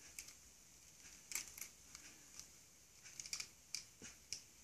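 Faint, scattered sharp clicks of small hard plastic parts being handled and pressed together, about ten irregular ticks.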